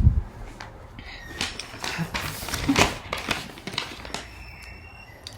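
Soft rustling and a few scattered clicks, heard mostly in the middle of the pause, against quiet room tone.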